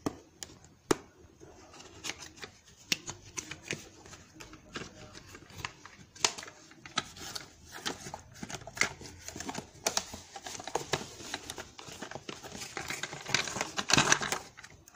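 Toy car packaging being unboxed by hand: cardboard and plastic crackling, scraping and tapping in irregular bursts, busiest and loudest about a second before the end.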